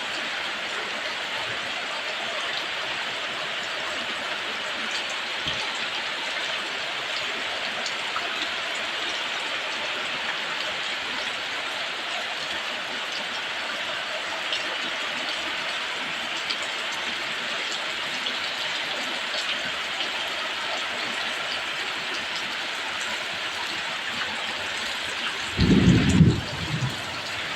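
Heavy rain falling, a steady dense hiss. Near the end a brief, loud low rumble of thunder breaks in for about a second.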